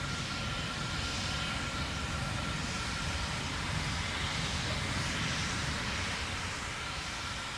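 Steady noise of the Terran 1 rocket's first-stage engines, nine Aeon 1 methane engines, firing during ascent. A faint steady high tone sits over the noise.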